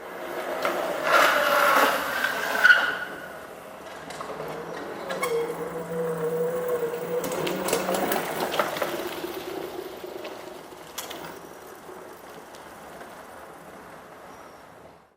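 Small electric motor running with mechanical rattling, its whine wavering in pitch as the load changes, louder for the first few seconds and then easing off.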